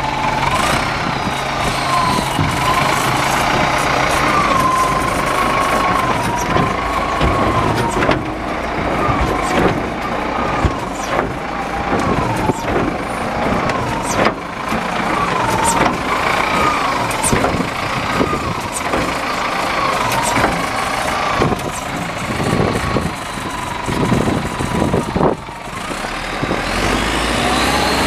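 Cat 936F wheel loader running, its engine steady under a whine that keeps wavering up and down in pitch. Scattered clicks and knocks come through.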